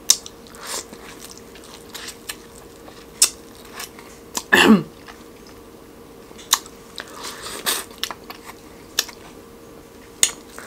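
Close-up eating sounds of biting kernels off a sauce-coated corn on the cob and chewing: sharp kernel pops and wet chewing clicks at irregular intervals. About halfway through there is a brief vocal sound that drops in pitch.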